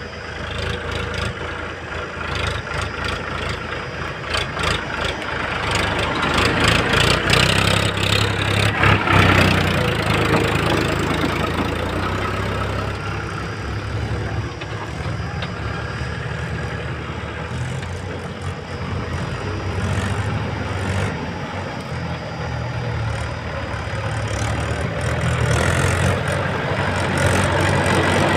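Diesel engines running: a JCB backhoe loader and farm tractors working close by. The engine note rises and falls, loudest about eight to ten seconds in and again near the end.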